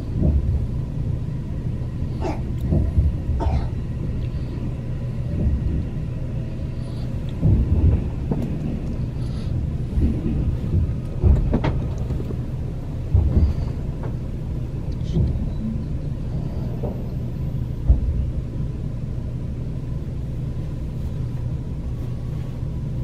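Train station platform ambience: a steady low hum, with passengers' footsteps and scattered knocks and thumps.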